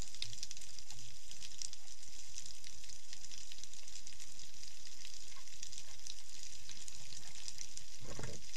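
Underwater crackling of a snapping shrimp chorus: a steady sizzling hiss of countless tiny clicks, heard with the camera underwater. A brief low whoosh of water comes near the end.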